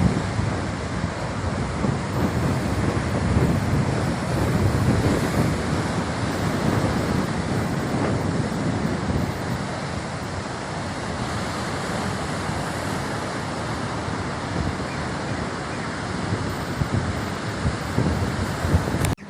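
Rough sea with waves surging and breaking, and wind buffeting the microphone in a heavy low rumble. The sound is a steady, loud wash of noise that drops out briefly near the end.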